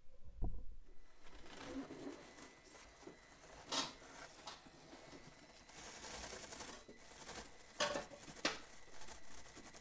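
Traxxas TRX-4M micro RC crawler climbing a foam rock course: a faint steady whine from its small motor and gears, with tyres scrabbling on the rock and a few sharp knocks as it bumps over ledges.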